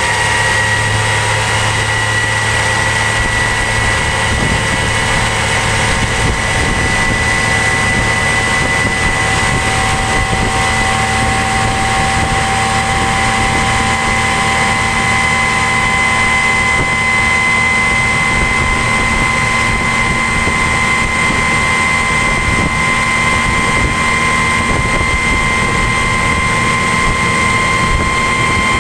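Elco 50 HP electric outboard motor running at high speed, a steady whine of several tones that rises slowly in pitch, over the rush of water and wind as the jon boat planes.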